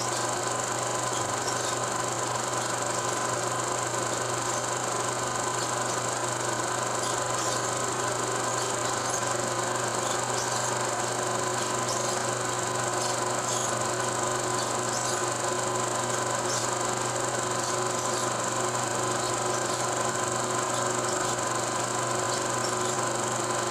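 Steady hum and hiss with faint, scattered crackles and no speech or music: the background noise of an old silent film.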